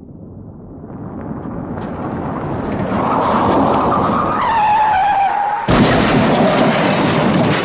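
Car crash sound effect: a vehicle's noise builds and grows louder, its tyres screech in a falling squeal about four seconds in, then a sudden crash of impact near six seconds, followed by crunching, clattering noise.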